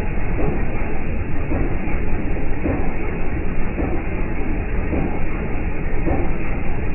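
Jeep Wrangler TJ's 4.0-litre inline-six running, a steady low rumble with a faint recurring pulse about once a second.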